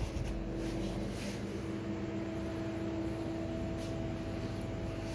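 A steady machine hum holding two low tones, the higher one joining about two seconds in, with a few faint rustles near the start.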